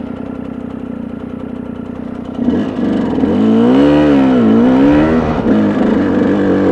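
Dirt bike engine running at low revs, then about two and a half seconds in it gets louder and revs up and down as the bike accelerates up a climbing dirt road, settling at a higher steady pitch near the end.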